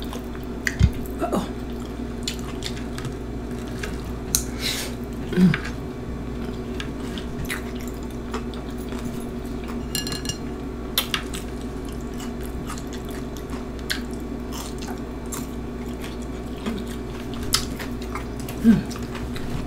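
Close-miked eating of Flamin Hot Cheetos nachos by hand: chewing with scattered wet mouth clicks and smacks, over a steady low hum.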